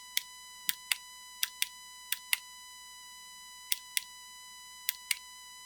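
Land Rover Freelander 1 hazard warning light switch pressed in and out by hand about six times. Each press gives a quick pair of sharp clicks as the push-button latches and releases, showing the reassembled switch is clicking in and out as it should.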